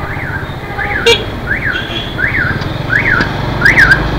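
Electronic turn-signal buzzer on a Yamaha motor scooter chirping, each chirp sweeping up and back down in pitch, about three every two seconds, over the scooter's steady engine hum. A sharp click about a second in and a few more near the end.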